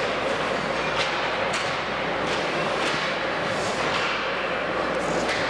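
Ice hockey rink din: a steady wash of arena noise broken by about six sharp knocks, typical of sticks and puck striking the ice and boards.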